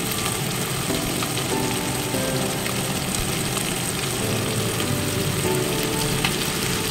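Small tangra catfish frying in hot oil in an iron kadai, a steady sizzle.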